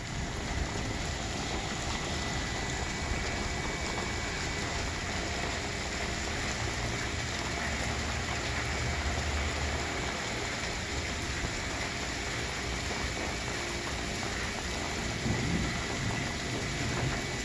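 Steady light rain falling on a backyard pool and its stone patio, mixed with the splash of the pool's spillway water features. A low rumble runs underneath and is strongest around the middle.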